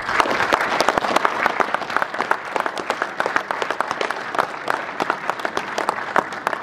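Audience applauding: a dense patter of many hands clapping, beginning sharply and thinning out toward the end.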